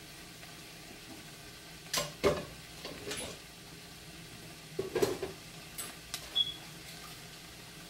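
Cabbage frying and steaming under the lid of a cast iron skillet, a faint steady sizzle, broken by a few sharp kitchen knocks and clatters about two, three and five seconds in.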